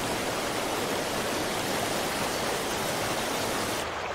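River whitewater rushing over rapids and falls: a steady, full roar of water that turns duller near the end as its hiss fades.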